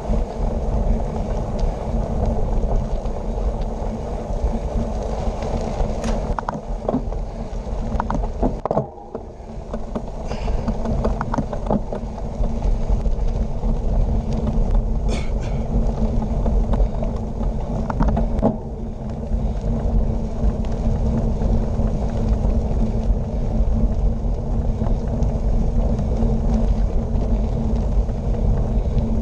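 Wind buffeting a bike-mounted action camera's microphone over the steady rumble of bicycle tyres rolling fast on a gravel road. Scattered rattles and knocks from the bike over the bumps come mostly in the middle stretch.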